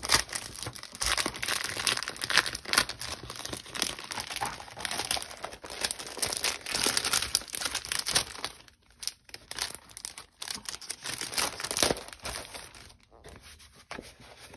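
Clear plastic packaging sleeve crinkling and crackling as it is handled and a sticker sheet is slid out of it, irregular and on and off, with short pauses and quieter handling near the end.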